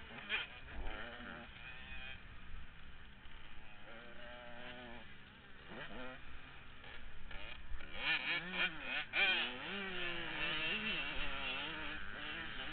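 KTM 105 supermini two-stroke motocross bike engine heard up close under hard riding, its pitch repeatedly climbing and dropping back with the throttle, busiest and loudest in the second half.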